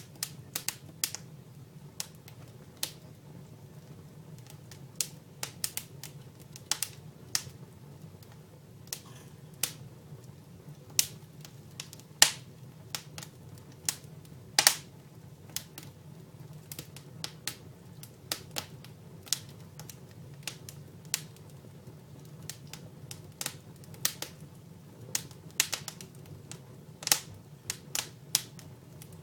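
Dry firewood burning in a fireplace, crackling with irregular sharp snaps and pops, two louder pops near the middle, over a low steady hum.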